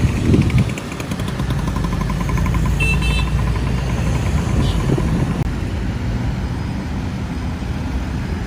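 Busy road traffic: a steady rumble of cars and motorcycles going by, with a short high-pitched tone about three seconds in.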